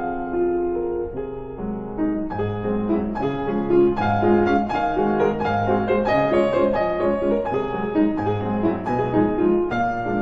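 Background piano music: a gentle tune of steady, evenly paced notes.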